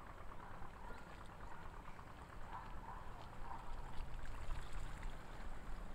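Sea water lapping and splashing over a steady low rumble, with a few short faint calls about halfway through.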